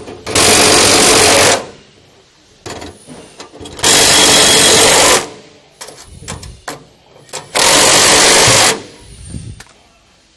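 Impact wrench with a 3/4 inch socket hammering in three bursts of about a second each, tightening nuts onto carriage bolts. Small clicks and knocks from the socket and hardware come between the bursts.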